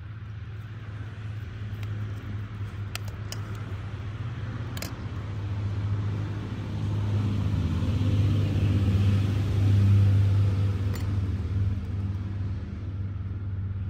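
A motor vehicle's engine running off-camera, a low steady hum that grows louder to a peak about ten seconds in and then eases off. A few light clicks sound over it.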